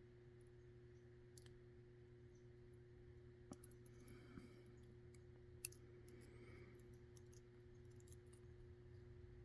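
Faint, scattered small clicks of tweezers and tiny lock pins being handled as a mortise lock cylinder is taken apart pin by pin, over a faint steady hum.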